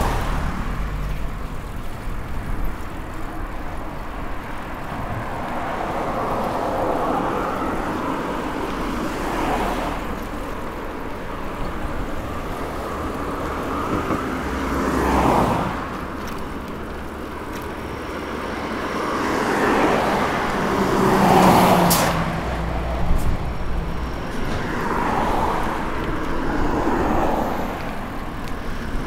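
Road traffic: cars passing one after another, each swelling and fading over a couple of seconds, over a steady road hum. The loudest pass comes about two-thirds of the way in, with a sharp click at its peak.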